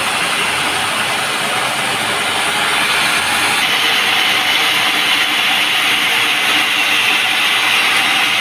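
Sawmill saw running steadily as it cuts through a teak log, a dense hissing whine over a running motor. About three and a half seconds in, the cutting noise grows a little louder and higher.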